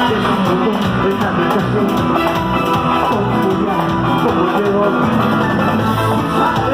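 Guitar-led music playing loudly and steadily.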